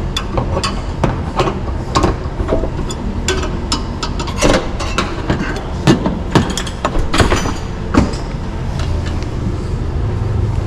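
Irregular metallic clanks and knocks over a steady low hum, typical of work in a vehicle shop.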